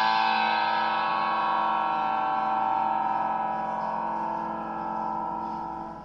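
Background music: one long held chord that slowly fades and dies away near the end.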